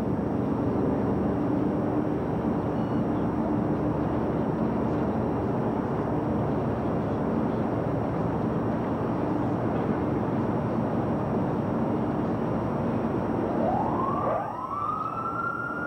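A loud, steady rushing noise, then about fourteen seconds in a demolition warning siren winds up to a high pitch and holds it: the 15-second warning before the building implosion.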